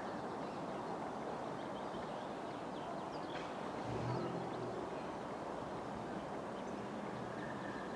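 Trackside outdoor ambience: a steady low rush of background noise with faint bird chirps. Near the end a faint steady high tone comes in as a Class 745 electric train approaches in the distance.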